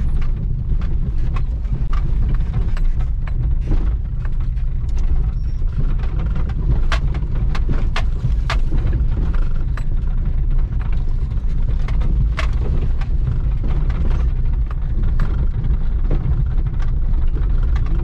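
A lifted Subaru driving slowly over a rough dirt track, heard from inside the cabin. Its engine and tyres make a steady low rumble, and frequent short knocks and rattles come as the body and suspension take the bumps.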